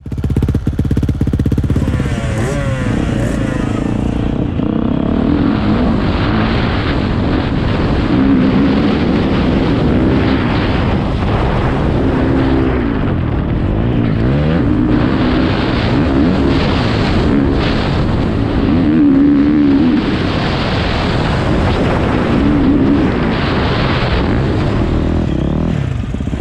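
Motocross bike engine heard close from a helmet-mounted action camera, running steadily at first and then revving up and down over and over as the throttle is opened and closed along the track.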